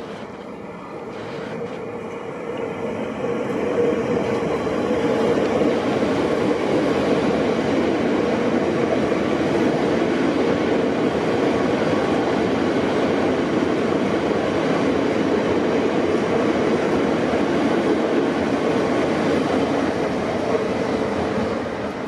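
Siemens Nexas electric suburban train running past along the platform: a steady rumble of wheels on rail and running gear. It swells over the first few seconds, holds loud, and eases off near the end.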